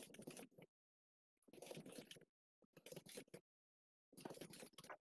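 Faint computer keyboard typing in four short bursts, with dead silence between them: a password being typed and retyped at a terminal prompt.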